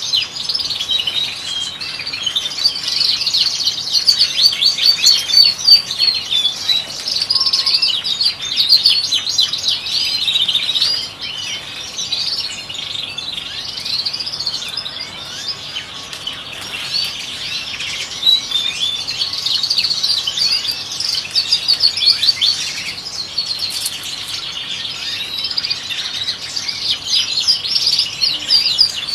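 European goldfinches singing, a dense, continuous run of fast twittering chirps and trills.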